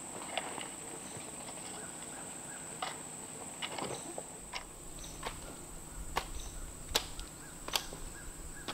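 Irregular sharp knocks and scrapes of a long-handled hand tool working the dirt around wooden posts, a few each second, the loudest clustered near the end. Insects drone steadily at a high pitch underneath.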